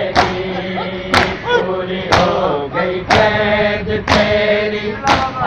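A crowd of men chanting a Muharram nauha (mourning lament) in unison, with a sharp, loud strike about once a second as the mourners beat their chests together in matam.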